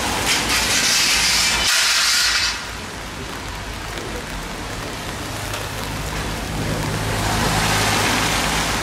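Car tyres hissing on a wet road as a car passes, the hiss stopping fairly abruptly about two and a half seconds in. Another vehicle's engine hum and wet-tyre hiss build up near the end.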